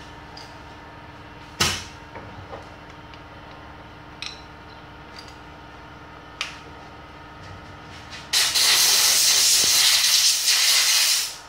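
Iwata AirGunsa 1.3 mm air spray gun hissing. There is a short sharp blast of air about a second and a half in and a couple of faint brief puffs. Then comes a steady spray of clear coat lasting about three seconds near the end.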